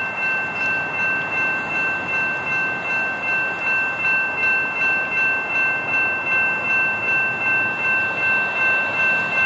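Railroad grade-crossing warning bell ringing steadily at about two strokes a second, sounding as the crossing is activated for an approaching train.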